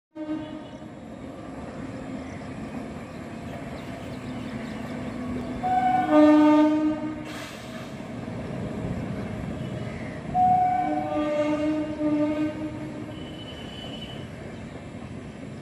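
Indian Railways passenger train passing with a steady rumble. Its locomotive horn sounds two long chord-like blasts, one about six seconds in and one about ten seconds in, each lasting a second and a half to two seconds.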